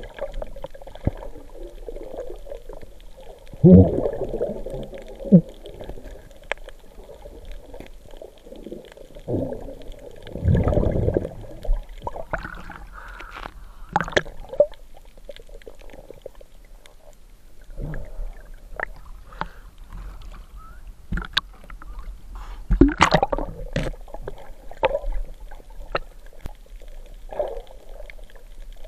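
Muffled underwater sound picked up by a submerged camera: irregular water gurgling and sloshing with scattered sharp clicks and knocks, swelling loudest about four seconds in, around eleven seconds and again near twenty-three seconds.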